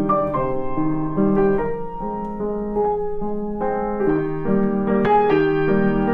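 Background piano music: a melody of held notes over a lower accompaniment.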